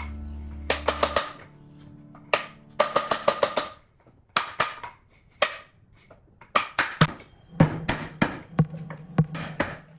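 Sharp knocks in quick, irregular clusters of three to six strikes with short quiet gaps between, after music fades out in the first second.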